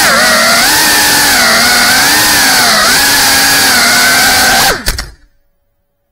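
GEPRC Cinelog 35 cinewhoop FPV drone's motors and propellers whining, the pitch rising and dipping with the throttle. About five seconds in, a few sharp knocks as it comes down on the floor, and the motors stop.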